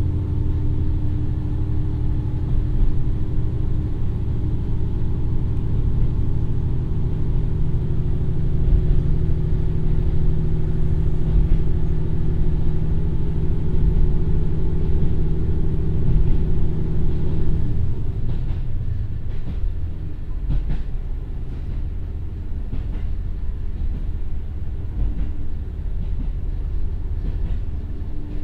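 Komatsu turbo diesel engine of a KiHa 150 railcar pulling steadily under power, heard from inside the passenger cabin as the train gathers speed. About two-thirds of the way in, the engine note drops off abruptly. The wheels' rumble and a run of clicks over the rail joints carry on.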